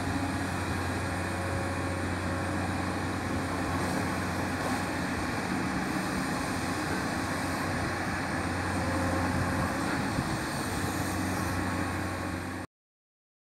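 Komatsu PC210 hydraulic excavator's diesel engine running steadily while it digs soil, a continuous low drone. It cuts off suddenly near the end.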